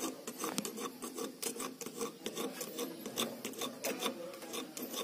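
Hacksaw blade scraping a battery terminal in quick, repeated back-and-forth strokes, roughening its sides to clear tarnish for a good connection.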